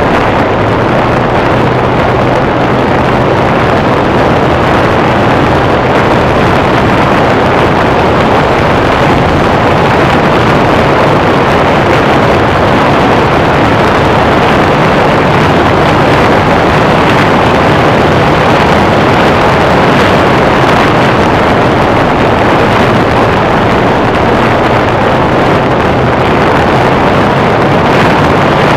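Mercury Cougar driving at a steady speed, heard from its bonnet: wind rushing over the microphone with the engine's steady drone underneath.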